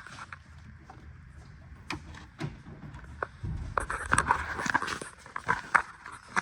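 Hand work on an engine: scattered clicks and knocks of metal tools and parts, growing busier with rustling and scraping about halfway through.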